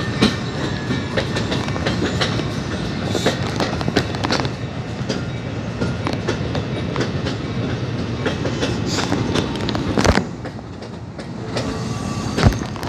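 New Jersey Transit Multilevel passenger coaches rolling past, a steady rumble broken by the wheels clicking over rail joints. Two sharp clacks stand out near the end.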